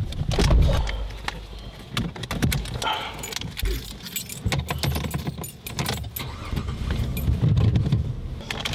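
Car keys jangling and clicking again and again at the ignition, over a low steady rumble.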